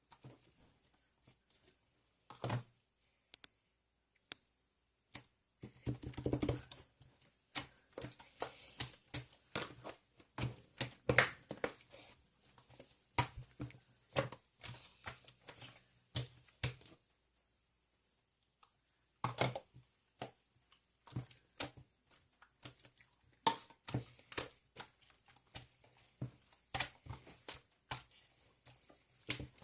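Irregular light clicks and taps in quick clusters, sparse at first, then dense, with a short lull about two-thirds of the way through.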